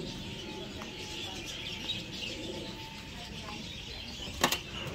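A roomful of caged small birds, parakeets among them, chirping and chattering without pause. A single sharp knock or click stands out about four and a half seconds in.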